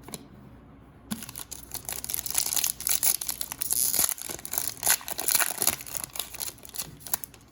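Foil trading-card pack wrapper crinkling as it is handled and torn open: a dense run of crackles starting about a second in and stopping just before the end.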